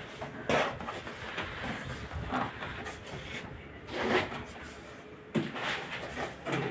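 Packaging being handled while a washing machine is unpacked: irregular scraping, rustling and light knocks, a few strokes a second apart, one sharper knock near the end.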